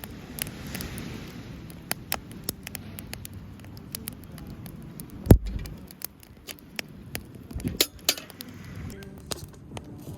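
Driftwood campfire crackling, with irregular sharp pops and clicks and one heavier knock about five seconds in.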